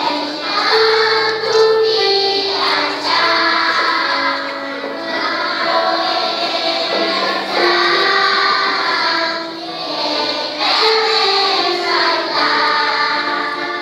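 Children's choir singing a Christmas cantata song together, over held instrumental accompaniment.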